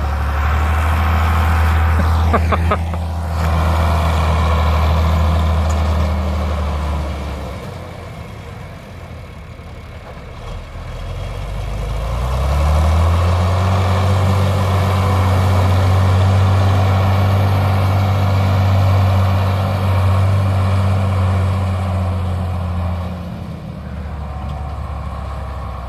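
Tractor engine working hard while pushing snow with a front blade. It drops back to a lower, quieter note about a third of the way in, revs up again with a rising pitch about halfway through, then settles down near the end.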